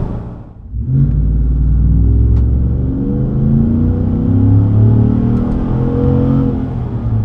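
Chevrolet Silverado pickup's exhaust as the engine is revved several times, its pitch rising and falling. It starts up after a brief drop in sound about half a second in.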